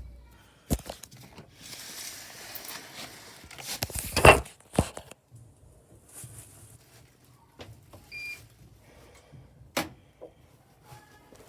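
Handling noises at a Bosch washing machine: rustling and scattered knocks, with a loud thud about four seconds in, and a single short high beep from the control panel about eight seconds in.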